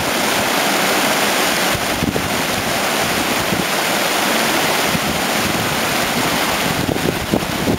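Mountain stream rushing and splashing in small cascades over mossy rocks: a loud, steady rush of water. Low rumbles of wind on the microphone come in near the end.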